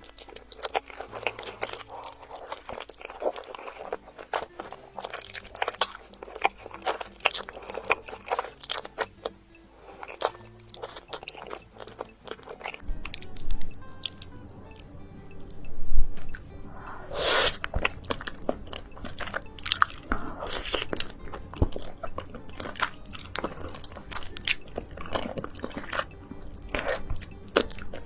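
Close-miked mouth sounds of someone eating creamy cheese pasta: wet chewing and biting with many small mouth clicks, over soft background music.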